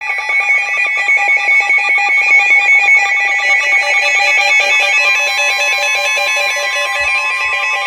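Emergency Alert System attention tone: a loud, steady electronic alarm of several pitches sounding together, announcing a flash flood warning.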